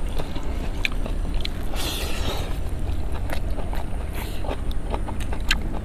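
Steady low wind rumble on the microphone, with scattered small clicks from eating off plates by hand and a brief rustle about two seconds in.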